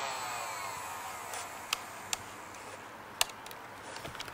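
A few sharp plastic clicks, spread unevenly through the middle, from a Nerf Strife blaster being handled as its barrel attachment is taken off. A faint sweeping noise fades out in the first second.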